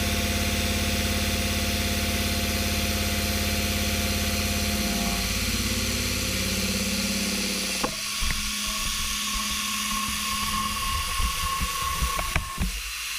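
CNC face mill cutting across the top of a metal block: a loud, steady pitched hum that shifts in pitch about five seconds in. About eight seconds in the cutter leaves the cut with a click, leaving a higher steady whine and scattered sharp ticks.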